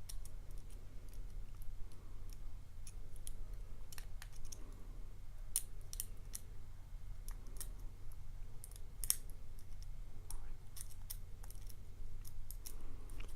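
Small, irregular metallic clicks and ticks of a dimple pick working the pins of an 8-pin Chinese dimple lock under light tension, as the picker probes the bottom and top pin rows.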